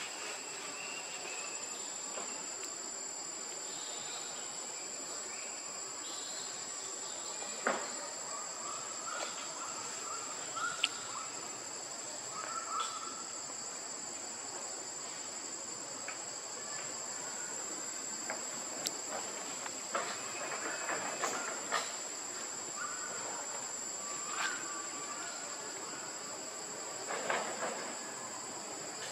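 Steady high-pitched insect drone, with a few short chirps and several sharp clicks scattered through.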